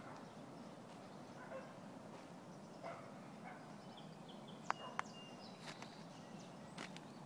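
Faint footsteps through dead branches and leaf litter, with two sharp twig snaps close together about five seconds in, and faint short bird chirps.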